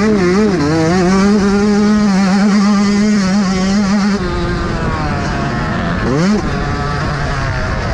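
Yamaha YZ125 two-stroke single-cylinder motocross engine under riding load, heard from on the bike. It revs up and holds high revs, drops back about four seconds in, then gives a quick rising rev blip around six seconds in.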